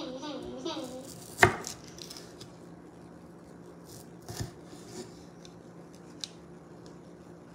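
Chef's knife chopping tomatoes on a wooden cutting board: a few separate knocks of the blade on the board, the loudest about a second and a half in and another about four and a half seconds in.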